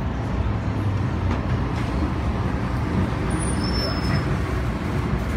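Interior running noise of an MTR M-Train on the Tsuen Wan Line pulling into a station: a steady low rumble from the car, with a faint thin whine about three and a half seconds in.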